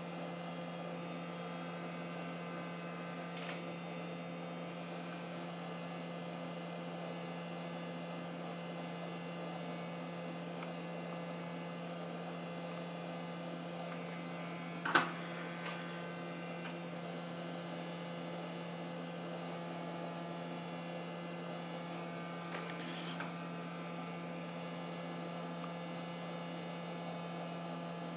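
Steady electrical hum, with one sharp click about fifteen seconds in and a couple of faint ticks later.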